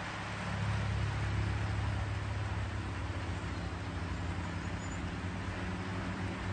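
A distant engine droning steadily in a low hum, over an even background hiss.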